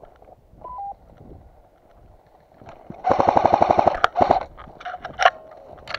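Airsoft gun firing a rapid full-auto burst of about a second, followed by a short burst and two single shots.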